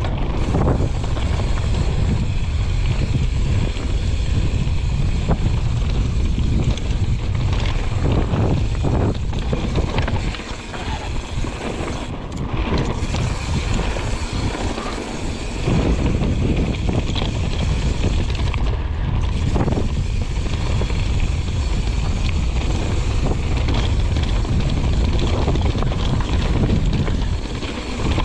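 Wind buffeting the microphone over the steady rumble of a YT Jeffsy full-suspension mountain bike rolling fast down a dirt trail, with frequent short knocks and rattles from bumps. The rumble eases for a few seconds around the middle.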